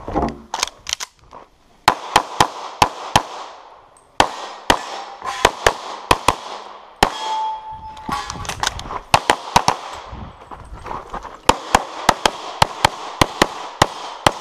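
Pistol gunfire on a practical-shooting stage: many rapid shots, mostly in quick pairs about a quarter second apart, fired in strings broken by short pauses as the shooter moves between positions.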